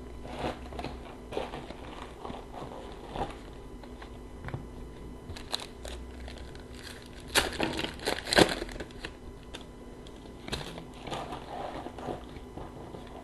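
Trading cards and their crinkly pack wrapper handled by hand: scattered soft clicks and rustles as cards are flipped through, with a louder burst of crinkling about seven and a half to eight and a half seconds in.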